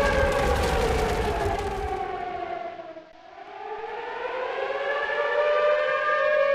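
Outdoor tornado warning siren wailing: its steady tone slides down in pitch and fades to a low about three seconds in, then climbs back up to full pitch and loudness.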